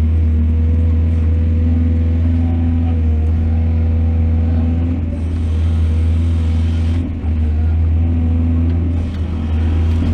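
Excavator's diesel engine running steadily under load: a deep drone with a whining tone that wavers slightly in pitch. A brief rush of hiss rises over it about five seconds in.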